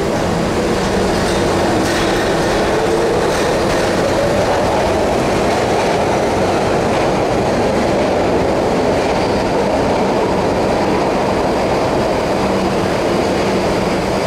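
PATCO rapid transit train, in its original-build cars, pulling out of an underground station: a loud, steady rumble of wheels and motors, with a whine that rises about two to four seconds in as the train picks up speed.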